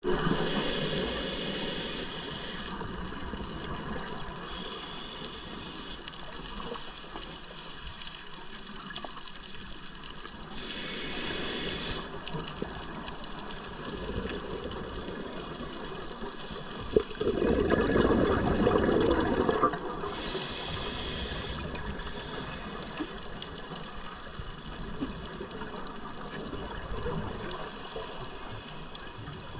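Scuba diver breathing through a regulator, heard underwater: short hissing inhalations every few seconds, and a loud rush of exhaled bubbles about two-thirds of the way through.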